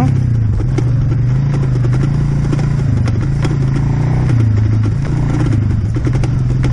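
Suzuki KingQuad ATV's single-cylinder engine running steadily nearby, its pitch rising and falling a little with the throttle, over frequent rattles and knocks from an electric scooter riding a rutted dirt track.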